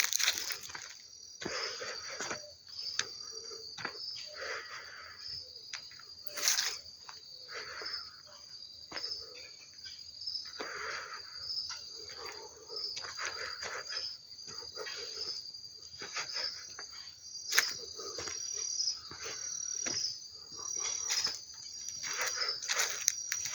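Crickets chirping in a steady, evenly pulsed high trill, with softer irregular sounds lower down and a few sharp clicks.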